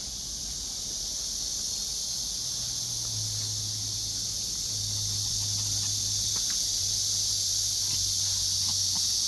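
Steady high-pitched chorus of insects chirping in the grass. A low steady hum joins in about two and a half seconds in.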